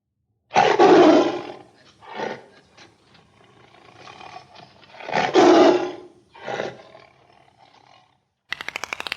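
Big cat roaring: two long, loud roars a few seconds apart, each followed by a shorter call. A fast rattling noise cuts in just before the end.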